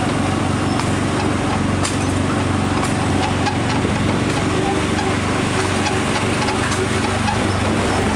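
Small gasoline engine of an Autopia ride car running steadily under way, a low even drone with light clicks and rattles.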